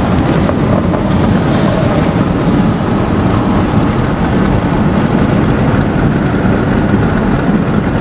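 Steady rumble of road and wind noise inside the cabin of a moving Honda car.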